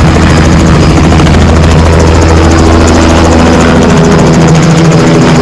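Two-bladed light helicopter lifting off and climbing overhead, its rotor and engine noise loud and steady.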